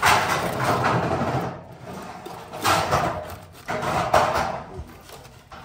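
A cleaver cutting through the crisp skin of a whole roast pig on a metal tray, in three bursts of crunching and scraping: the first about a second and a half long, then two shorter ones.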